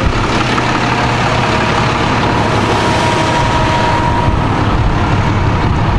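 A vehicle engine running steadily close by, loud and unchanging, with a faint steady whine above it for a few seconds in the middle.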